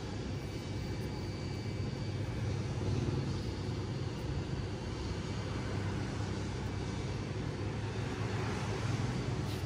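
Steady low mechanical rumble, an even background hum with no separate events.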